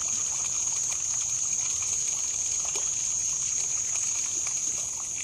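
Steady outdoor ambience: a constant high-pitched drone over a soft, even trickle of water, with a few faint ticks.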